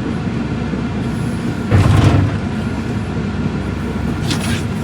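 A vehicle on the move: a steady low rumble of engine and road noise. About two seconds in there is a louder bump, and near the end a brief burst of higher-pitched noise.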